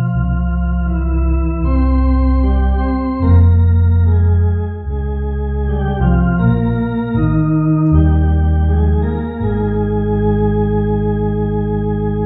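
MD-10 EVO two-manual electronic organ playing a slow hymn in sustained chords over deep bass notes, with a slight waver in the tone. Near the end it settles on a long held final chord.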